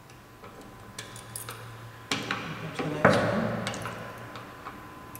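Hex key and wrench clicking and clinking against the steel slide of a magnetic core drill while its gib screws are adjusted: a string of sharp metallic ticks, the loudest clack about three seconds in.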